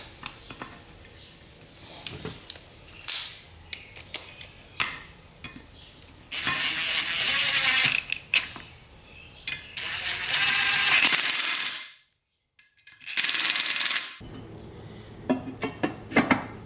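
DeWalt 20V cordless drill running in three short bursts, driving hex flange head screws that fasten a T56 clutch slave cylinder to an aluminium adapter plate. Light clicks of small metal parts and screws being handled come before and after the bursts.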